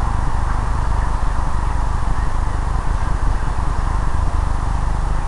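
Steady low rumbling background noise with a constant hiss, unchanging throughout.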